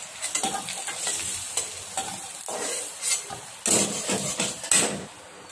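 Fish roe frying in oil in a steel kadai, sizzling, while a spatula scrapes and stirs against the pan to lift the fried pieces out. There are a few louder scrapes about four seconds in, then only a quieter sizzle.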